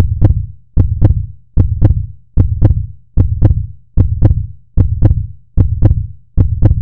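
Heartbeat-like double thumps repeating steadily, a pair about every 0.8 s. Each thump is a low boom with a sharp click on top, and the beat is loud.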